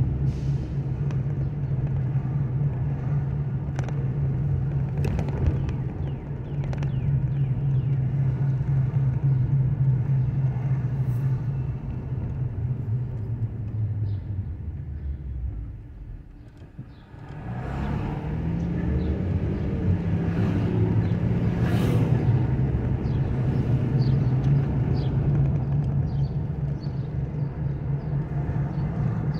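Car engine and road noise heard from inside the cabin while driving, a steady hum. About halfway through it falls away as the car slows to a stop and goes briefly quieter, then the engine note rises again as the car pulls away.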